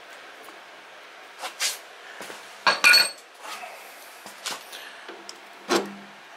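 Metal parts and hand tools clinking and knocking during work on a snow thrower's axle shaft: about half a dozen sharp metallic clinks. The loudest come as a quick pair about three seconds in, with a short ring.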